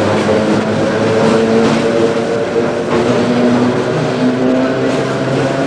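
Old Sydney single-deck electric suburban train (a 'Red Rattler') running, heard from inside the carriage: a steady motor hum and whine that slowly rises in pitch, with occasional clicks.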